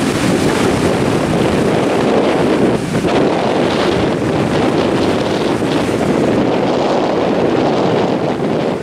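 Steady wind buffeting the camera microphone over the wash of breaking ocean surf.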